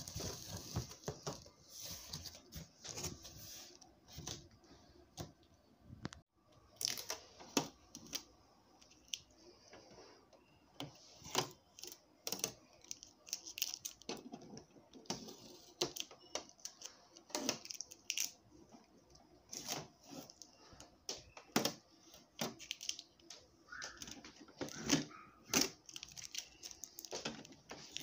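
Irregular clicks and clacks, with occasional rustling and tearing, from a new printer and its paper and plastic being handled.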